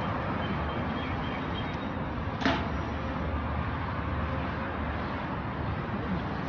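Steady street noise with the low rumble of a car engine as a supercar drives off, and one sharp crack about two and a half seconds in.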